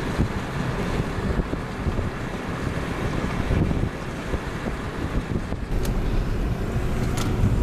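Strong, gusty wind from a severe thunderstorm's outflow buffeting the microphone, a loud, uneven low-heavy noise that swells and dips.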